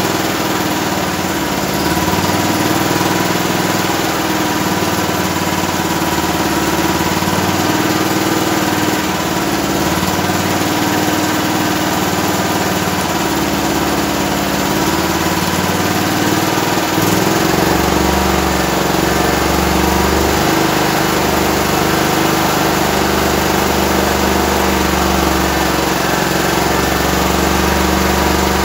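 Grip 13 hp single-cylinder petrol generator engine running steadily. Its low drone grows louder about two-thirds of the way through.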